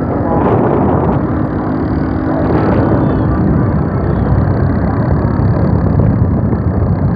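Diesel tractor engines running steadily at road speed in high gear, mixed with the rush of wind and tyre noise on the microphone.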